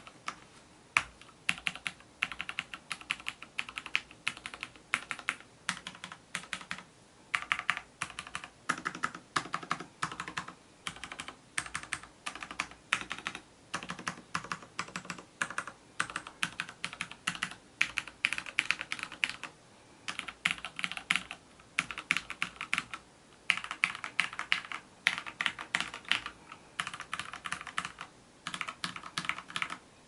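Fast typing on a Rosewill RK-9000V2 mechanical keyboard with linear Cherry MX Black switches: a dense run of key clacks in bursts, broken by brief pauses every few seconds.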